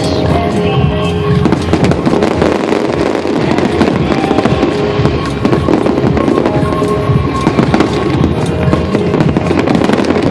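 Fireworks bursting and crackling densely and without a break, with music playing alongside.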